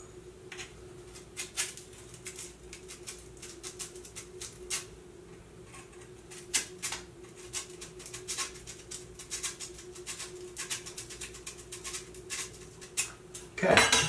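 Irregular short scratching strokes of sandpaper rubbed by hand against the metal head of a combination square, taking down the high spots that throw it out of square. A faint steady hum runs underneath.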